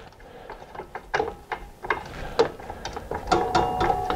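Metallic ratcheting clicks from work at the DeWalt miter saw's blade arbor as the blade is taken off. Irregular clicks at first, settling into a fast steady ratcheting rhythm about three seconds in.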